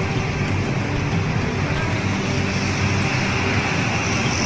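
Steady, fairly loud outdoor background noise, with faint music underneath.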